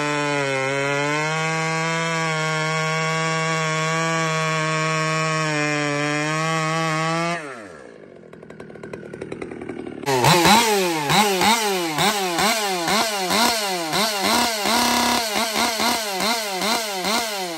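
Two-stroke chainsaw with a modified muffler held steady at full throttle, then dropping off sharply about seven seconds in. After a short lull it is revved up and down over and over, about one or two revs a second, as a test of the muffler.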